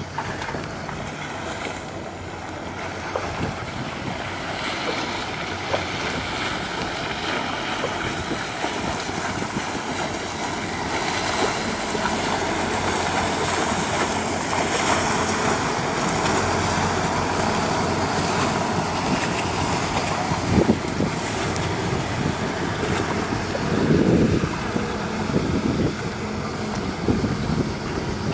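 Pirelli PZero 1400 Sport rigid inflatable boat's engines running at low speed as it passes close by, with water washing from its wake. The sound grows louder toward the middle, and wind buffets the microphone now and then, most strongly near the end.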